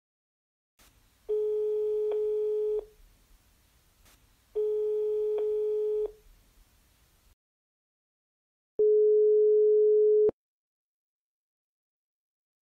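Telephone ringback tone, the ringing a caller hears while waiting for an answer: two rings of about a second and a half, a few seconds apart, over faint line hiss. Near the end comes a louder, cleaner single ring tone.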